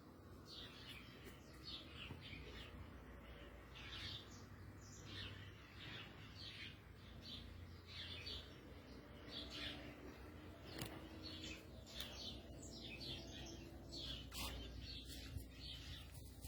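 Small birds chirping, many short high chirps a second, over a faint low steady hum.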